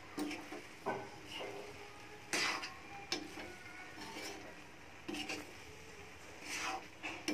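A spatula scraping and clinking against a metal kadhai as scrambled egg bhurji is stirred and turned, in irregular strokes every second or so.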